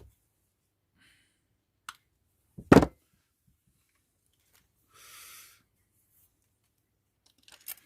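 Small knocks and clicks of parts and tools being handled on a workbench, with one sharp knock about three seconds in and a brief rustle about five seconds in.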